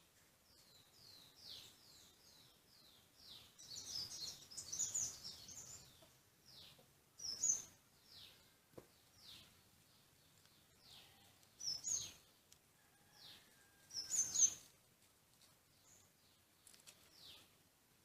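Birds calling: a run of short high chirps that each slide downward, repeated many times, with a louder burst of chattering calls about four seconds in and a few sharp, louder calls later on.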